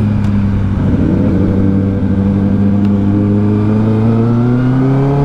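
2023 Kawasaki ZX-10R's inline-four engine running at a steady low-speed cruise, heard from on the bike. Its pitch dips slightly about a second in, then climbs steadily near the end as the bike accelerates.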